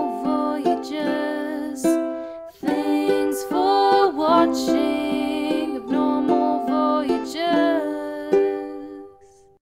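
Background music with a sustained melody. It breaks off briefly about two and a half seconds in, then fades out and stops at the very end.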